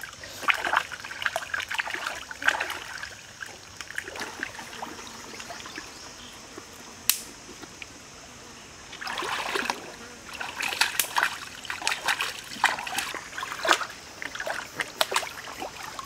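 Water splashing and dripping in irregular bursts, as from hands scooping and washing in a shallow stream, over a steady hiss. There is one sharp click about halfway through.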